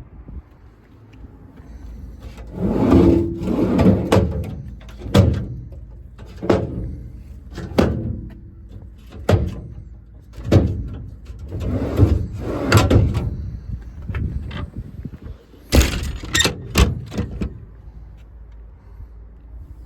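Metal doors and compartments on a truck's service body being worked: a series of clanks, rattles and sliding scrapes, with a cluster of sharp latch-like clicks about three-quarters of the way through.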